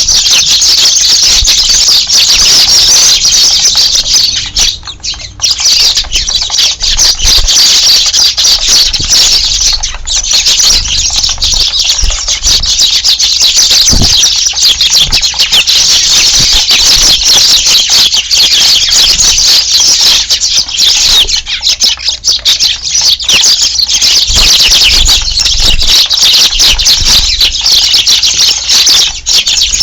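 A large flock of Eurasian tree sparrows chirping loudly and continuously in a dense, overlapping chorus. The chorus thins briefly about five seconds in.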